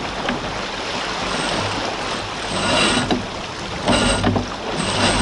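Jeanneau Sun Fast 3200 sailing yacht under way: a steady rush of water along the hull and wind, with a sheet being hauled in on a winch and blocks. There are two louder spells of winch and line noise in the middle.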